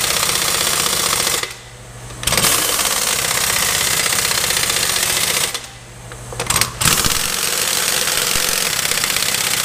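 Pneumatic impact wrench hammering on a truck wheel's lug nuts in long runs of three to four seconds. It breaks off about a second and a half in, and again for about a second near the middle, with a couple of short blips of the trigger.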